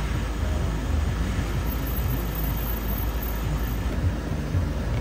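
Steady low rumble of an idling car, heard from inside the cabin.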